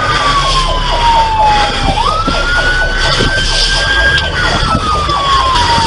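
Police siren on a slow wail: a falling tone that sweeps quickly back up about two seconds in, holds high, then slides down again near the end.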